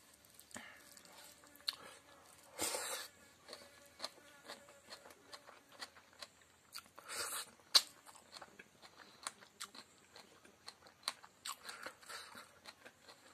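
Close-miked chewing and crunching of fried chicken intestine and pork fat with rice, with many quick wet mouth clicks and one sharper click just under eight seconds in.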